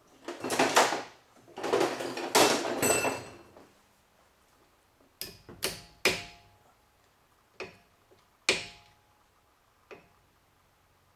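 Metal brake parts and tools being handled: two longer metallic scraping rattles with a faint ring in the first three seconds or so, then about six separate sharp metal clinks spread over the rest.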